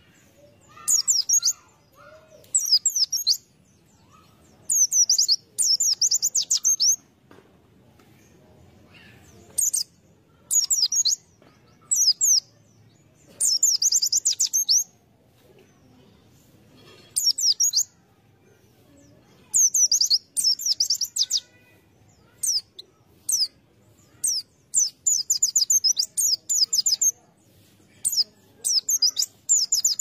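White-eye (pleci) singing: bursts of rapid, high-pitched twittering phrases, each lasting from about half a second to a second and a half, repeated with short pauses between them.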